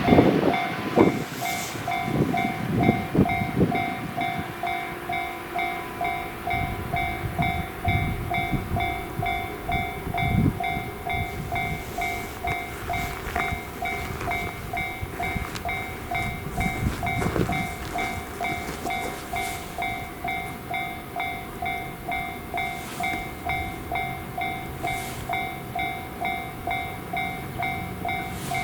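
Japanese level-crossing warning bell ringing in a fast, steady ding-ding-ding while a train passes, its wheels clacking over the rail joints. The train noise is loudest in the first few seconds and thins out after about 18 seconds, while the bell keeps ringing.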